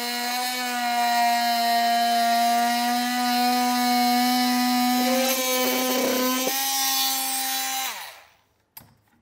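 Oscillating multi-tool cutting through a plastic rock guard panel, a steady buzzing hum. It shuts off and winds down about eight seconds in.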